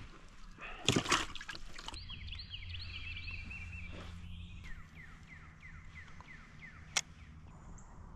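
Water splashing and dripping about a second in as a freshly caught bluegill goes into a water-filled bait bucket. Then come several seconds of repeated short falling chirps and a single sharp click near the end.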